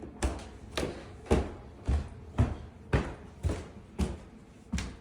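Footsteps going up a flight of stairs: a steady run of heavy thuds, about two a second.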